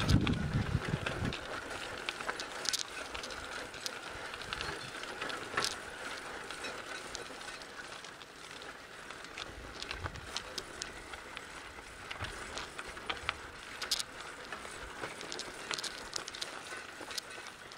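Mountain bike riding a dirt-and-gravel trail: steady tyre noise on the dirt with many small clicks and rattles from the bike and the stones under the wheels. There is a low rumble in the first second or so.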